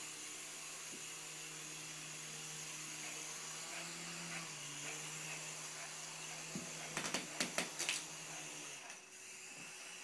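Small toy RC helicopter's electric motor and rotors whirring steadily, dipping slightly in pitch about four seconds in. About seven seconds in comes a quick run of five or six sharp clacks, and the whirring stops about a second later.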